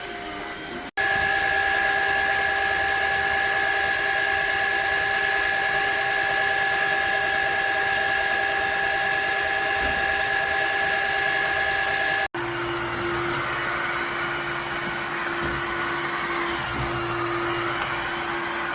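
Shark HydroVac wet-dry vacuum's motor running steadily with a high whine over a hiss. The sound cuts off abruptly about a second in and again about twelve seconds in, and after the second cut it runs on at a lower pitch.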